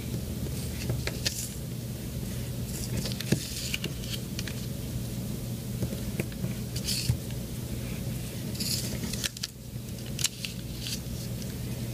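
Origami paper being folded and pressed flat by hand as its corners are folded in toward the middle: irregular crisp rustles and crinkles, a few at a time.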